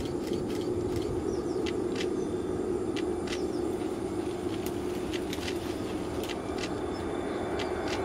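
Steady low rumble with many short, high chips or ticks scattered irregularly over it.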